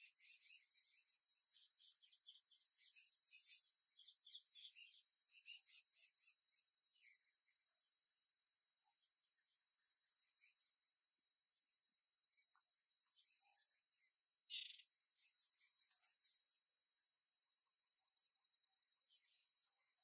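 Faint outdoor birdsong: many short, high rising chirps and whistles from several birds over a steady high hiss. There is one louder harsh call about two-thirds of the way through and a fast trill near the end.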